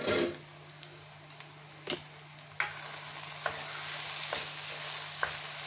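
Minced meat sizzling in oil in a non-stick frying pan while a spatula stirs it, with a few sharp knocks of the spatula against the pan. The sizzle grows louder about two and a half seconds in, as the keema is being fried down (bhuna) after its own water has cooked off.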